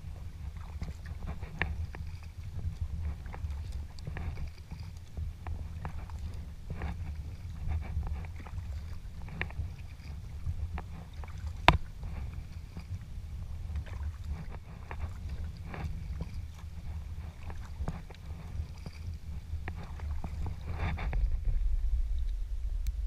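Sea kayak (Prijon Seayak 500 LV) being paddled: paddle blades dip and splash about once a second over a steady low rumble. One sharp knock comes about halfway through.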